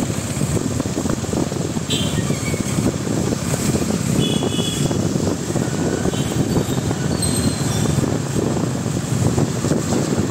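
Steady rumbling noise of riding a two-wheeler through wet city traffic, mostly wind buffeting the microphone over the vehicle's running. A few faint short high tones come through now and then.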